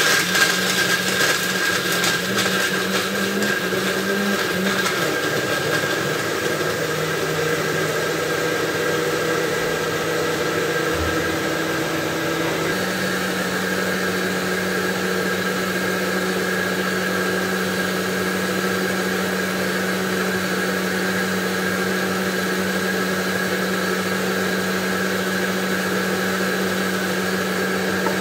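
Countertop electric blender switched on and running, blending bananas for a milkshake. Its motor hum wavers for the first few seconds as the pieces are chopped, then settles, and about halfway through steps up to a slightly higher steady pitch that holds to the end.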